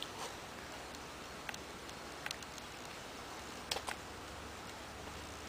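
A few faint, short clicks and taps over quiet room hiss.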